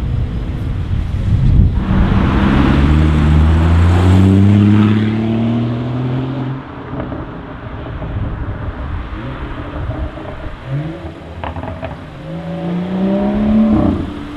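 Performance car engines accelerating hard as cars pull away one after another. The first run is loud, its pitch rising steadily for about five seconds. A second car revs up with a rising note near the end.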